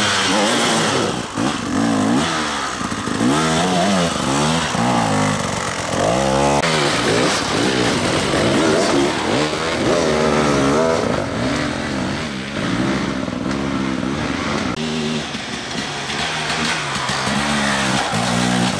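Enduro dirt bike engines revving hard and falling back again and again under load while climbing over rocks. The engine sound changes abruptly twice as different bikes take over.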